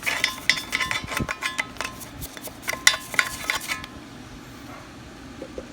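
Irregular metallic clinks and scraping on the exhaust manifold as rust neutralizer is worked into it, each clink ringing briefly. The clinking stops about four seconds in, leaving a low steady background.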